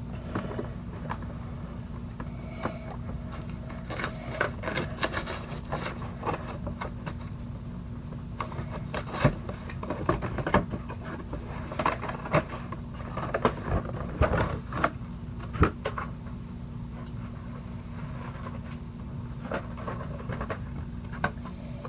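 A Pokémon card collection box being handled and opened by hand: scattered taps, scrapes and crinkles of cardboard and packaging, busiest through the middle, over a steady low hum.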